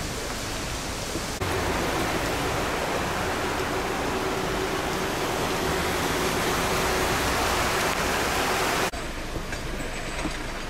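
Heavy rain falling on flooded streets: a steady hiss that jumps louder about a second and a half in and drops back abruptly near the end.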